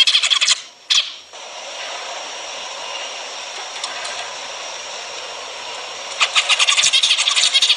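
Zebra finches singing and calling: dense, rapid-fire chatter for the first half-second and again from about six seconds in, with a quieter stretch of softer hiss in between.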